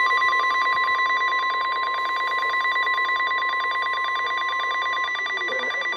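NOAA Weather Radio 1050 Hz Warning Alarm Tone: a loud, steady single-pitched shrill tone with a rapid flutter, cutting off at the end. It is the signal that a warning broadcast follows, here a severe thunderstorm warning.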